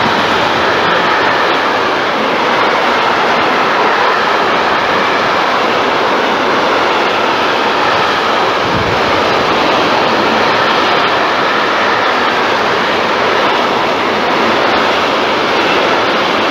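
Freight train wagons loaded with semitrailers rolling past close by: a loud, steady rush and rumble of wheels on rail, with one brief low bump about halfway through.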